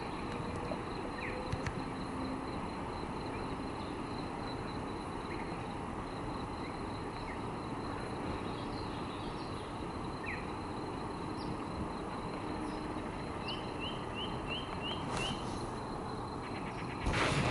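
Outdoor dawn ambience: a steady background hiss with a continuous high, thin tone, scattered short bird chirps, and a quick run of six rising chirps about three-quarters of the way in. A brief loud noise comes just before the end.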